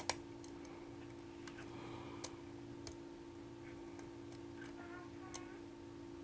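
Faint, scattered clicks of a Euro hook pick and pry-bar tension tool working the pins of a six-pin biaxial Medeco high-security lock, over a steady low hum.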